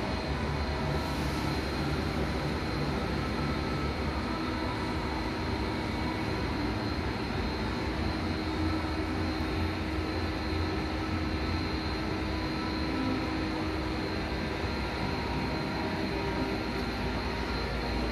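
An octabin dumper's drive running steadily while its tipping cradle swings back upright and then tips over again: a constant mechanical hum with a low rumble.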